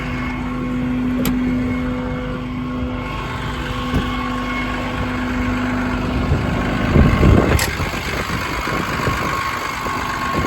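Ram 5500's 6.7 Cummins diesel engine running with a steady whine over it. A louder rush of noise comes about seven seconds in, and then the whine drops out. There is a sharp click about a second in and another near eight seconds.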